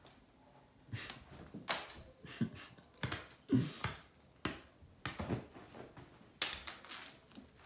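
Irregular taps, clicks and soft thumps of a cat's paws and claws scrambling on a hardwood floor during play, with a brief scrape about three and a half seconds in.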